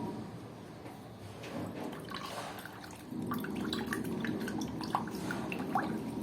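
Water splashing and dripping as a pet parrot bathes, with many small splashes scattered through. A low steady hum underneath grows louder about three seconds in.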